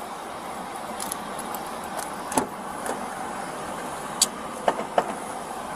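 Steady rumble of vehicles, with a few sharp clicks and knocks: one about two and a half seconds in and a cluster between four and five seconds in.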